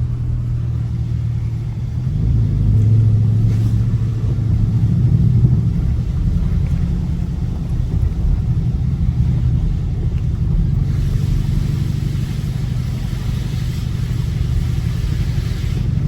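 A Dodge Scat Pack's V8 engine drones from inside the cabin while driving, swelling under throttle a few seconds in, then holding steady. A steady hiss joins about eleven seconds in.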